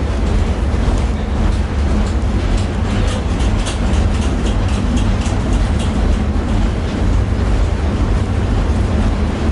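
Tatra T6B5SU tram in motion, heard from inside the passenger car: a steady low rumble, with a run of quick clicks, about three or four a second, through the middle few seconds.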